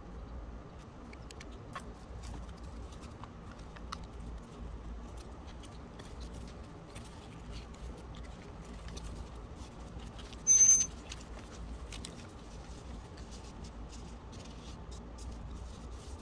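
Light rustling and faint taps of folded origami paper being handled on a tabletop, over a steady low hum. About two-thirds of the way through comes one short, loud, high-pitched squeak.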